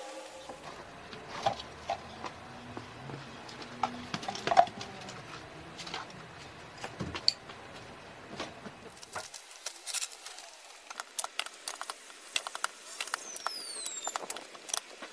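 Hand tools working a trench in frozen ground: irregular knocks and scrapes, with a quicker run of small clicks in the last few seconds.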